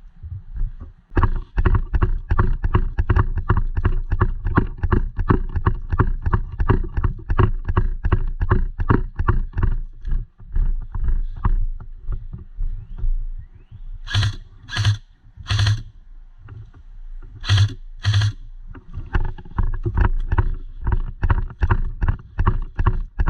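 Quick, regular footsteps, about four or five a second, pausing past the middle. In the pause there are a few louder, sharper bursts in twos and threes.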